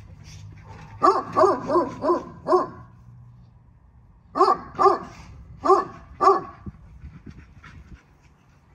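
American bully dog barking: a quick run of five barks, a short pause, then four more spaced-out barks.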